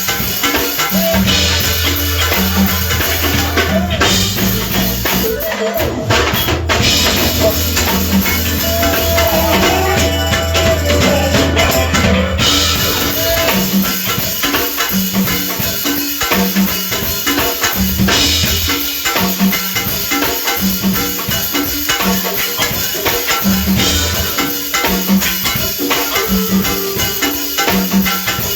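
A band playing, with drums and bass keeping a steady beat.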